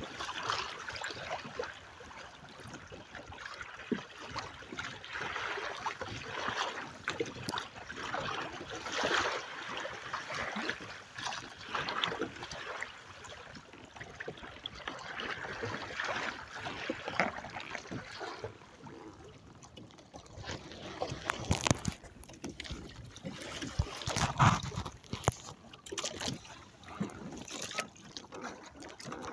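Choppy water sloshing and splashing against a sailing kayak's hull and outrigger float, in uneven swells that rise and fall every second or two. In the last third, a run of sharp knocks and thumps.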